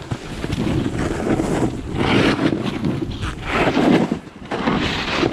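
Snowboards sliding and carving over packed snow through banked turns, a scraping hiss with wind buffeting the microphone. The scrape swells sharply with the turns about two seconds and three and a half seconds in.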